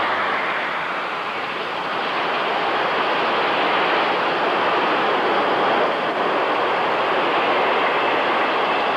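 Steady running noise of a South Shore Line electric interurban train rolling along the rails.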